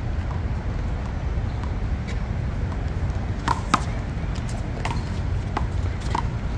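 A one-wall handball rally: a small rubber ball slapped by hand and smacking off the wall, a string of sharp, irregularly spaced hits with the loudest about three and a half seconds in, over a steady low background rumble.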